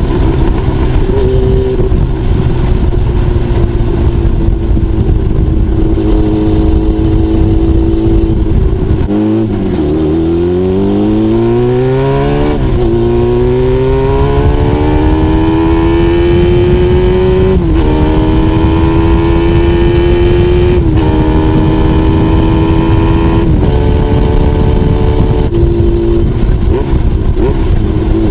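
Honda CBX550F inline-four engine running through a homemade exhaust silencer while being ridden. It holds a steady pitch at first, drops sharply about a third of the way in, then climbs back up through the gears, the pitch rising in each gear and stepping down at each upshift.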